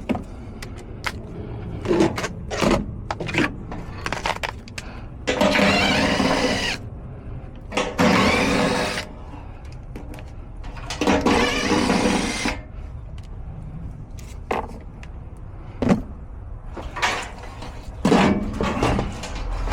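Cordless drill run in three short bursts, with scattered sharp knocks and clanks of metal parts between them.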